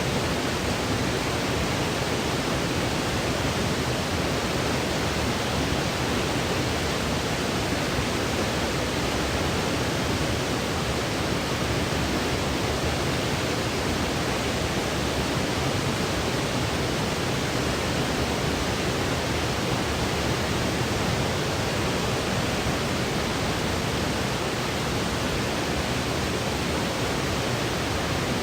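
Steady white noise played for sleep: an even, unchanging hiss with no rhythm or variation.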